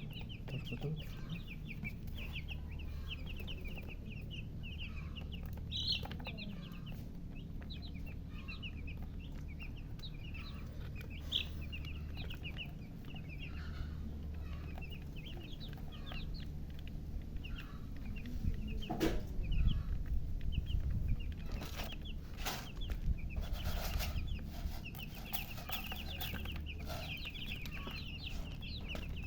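A group of baby chicks peeping continuously in rapid, high, short peeps over a steady low hum. A run of knocks and bumps comes about two-thirds of the way through.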